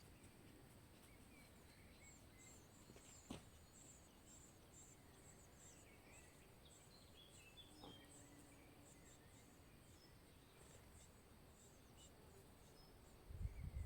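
Faint rural outdoor ambience: soft, high-pitched chirps repeat throughout over a quiet background hiss. A single click comes about three seconds in, and a low rumble starts near the end.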